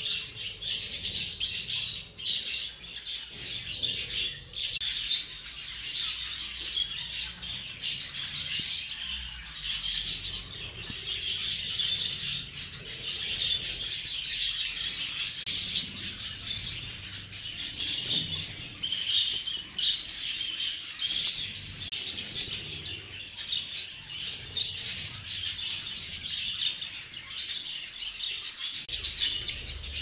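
Zebra finches chirping: a dense, unbroken stream of short high calls from several birds.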